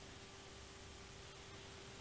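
Near silence: faint room hiss with a faint steady tone underneath.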